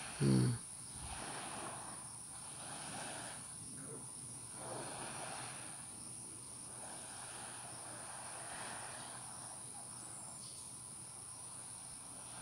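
Steady high-pitched insect chirring, with a soft rushing noise that swells and fades every second or two. About half a second in comes one brief, loud sound that falls in pitch.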